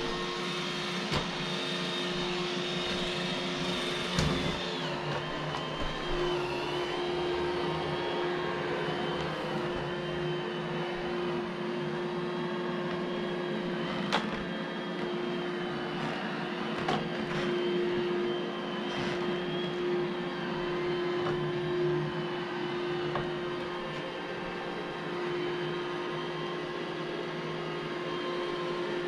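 iRobot Roomba j7 robot vacuum running, a steady hum under a higher motor whine, with a few sharp knocks along the way.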